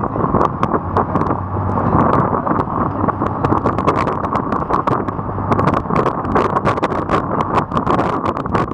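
A sportfishing boat's engines running under way in rough sea, a steady drone mixed with wind noise on the microphone. Many sharp, irregular ticks sound over it throughout.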